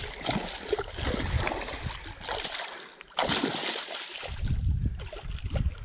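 Hooked muskie thrashing and splashing at the surface in shallow water over rocks, with a sudden louder splash about three seconds in. Low thumping rumble follows near the end.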